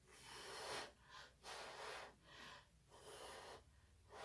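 A person's breath: a series of about five short, quiet, breathy puffs of air, each under a second long.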